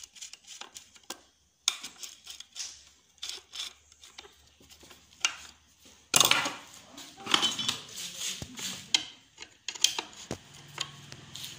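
Metal hand tools clinking and scraping on a bush cutter's clutch housing as its bolts are tightened, a thin driver and then a 10 mm T-handle wrench: many short sharp clicks, busier and louder from about six seconds in.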